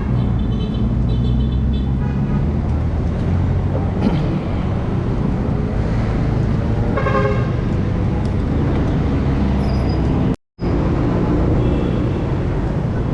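Busy road traffic with vehicle engines running and car horns sounding, once near the start and again about seven seconds in. The sound cuts out for a moment about ten seconds in.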